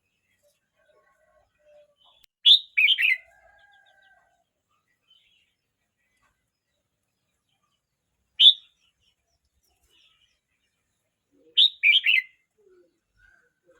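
Red-whiskered bulbul singing in short, loud phrases with long pauses between them: a quick run of notes a few seconds in, a single note in the middle, and another quick run near the end.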